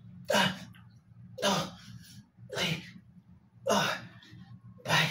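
A man blowing out a hard breath on each push-up rep, five forceful exhalations about a second apart.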